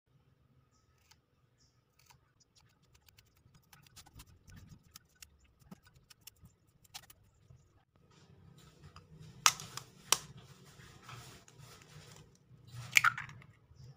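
Kitchen scissors snipping a leek into small pieces over a glass dish, a quick run of small clicks. Later, two sharp taps of a knife blade on an eggshell, and near the end a louder crack as the egg is broken open.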